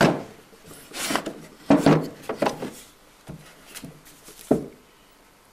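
Carved wooden woodcut printing blocks being handled in a wooden drawer: a string of knocks and short scrapes, about one or two a second, as the blocks are slid, lifted and set down against one another and the drawer.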